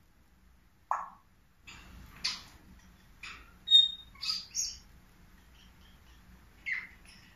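African grey parrot making a string of short calls: one call about a second in, a cluster of chirps and clicks a couple of seconds later with a brief clear whistle, and one more call near the end.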